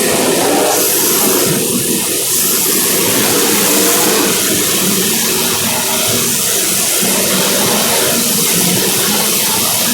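Several small racing engines running together on track, their pitches rising and falling as they lap.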